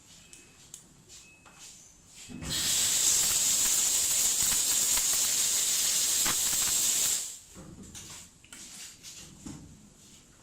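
Compressed air blasting from an air-hose blowgun: a steady, loud hiss that starts about two and a half seconds in and cuts off after about five seconds, with small handling clicks before and after.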